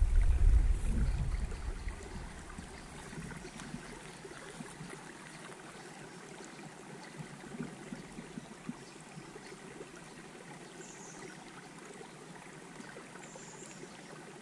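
Faint steady trickle of creek water, with a few small splashes about halfway through as the bait dips into the water. Wind rumbles on the microphone in the first second or two.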